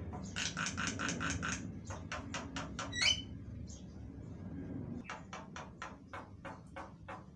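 Javan myna calling in runs of rapid, harsh clicking notes, about five a second. There are three bursts, with a short rising whistle-like note about three seconds in, the loudest part.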